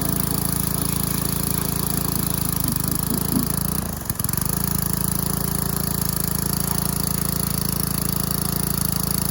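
Small gas pressure washer engine running steadily, with a steady high hiss over it and a brief dip about four seconds in.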